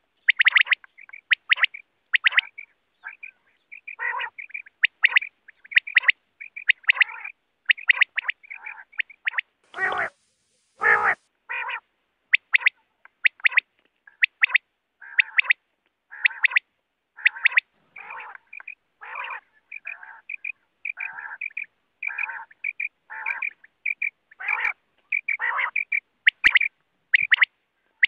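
Common quail calling over and over: short calls repeated about two a second, with two longer, fuller calls about ten seconds in.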